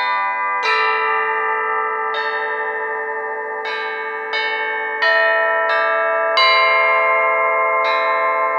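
Flat metal bells (plate bells) struck one note at a time, about eight strikes at an uneven, unhurried pace. Each note rings on with bright overtones and overlaps the next, so the tones blend into a sustained chime.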